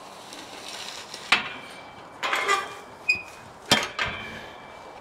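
Galvanised tubular steel field gate being worked open: a handful of metallic clanks and rattles from the gate bars and its spring-loaded latch bolt, each ringing briefly, the loudest nearly four seconds in.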